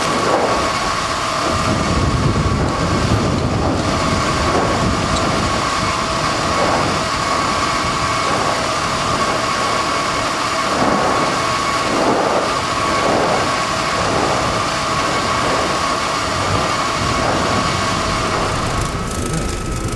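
Continuous loud roar and rumble of the Fimmvörðuháls fissure eruption's lava fountains, swelling in irregular surges, with a steady high whine over it.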